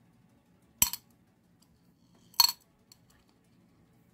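Two small metallic clinks about a second and a half apart: lead air rifle pellets set down on a thin metal pellet-tin lid, each with a brief ring.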